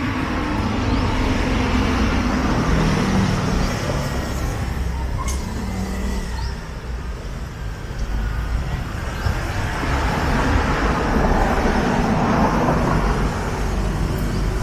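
Street traffic: vehicle engines running steadily close by, with a broad road hiss that grows louder in the second half as a vehicle goes past.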